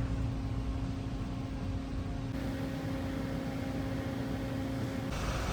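Audi A5 2.0T's turbocharged four-cylinder engine idling with the air conditioning running during the refrigerant charge: a steady hum with a constant low tone.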